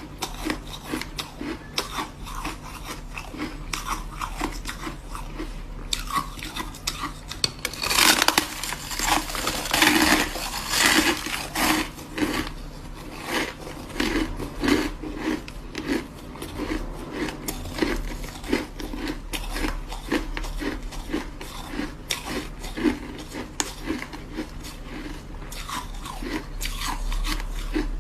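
Ice being bitten and crunched between the teeth, then chewed: a steady run of sharp crunches, densest and loudest about eight to twelve seconds in.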